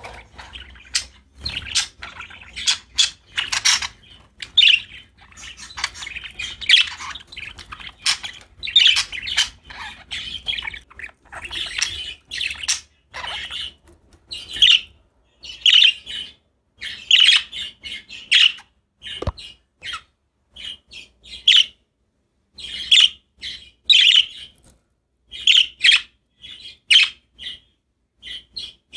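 Pet budgerigars (budgies) chirping and chattering: short, rapid chirps and squawks in quick runs, with brief pauses between bursts.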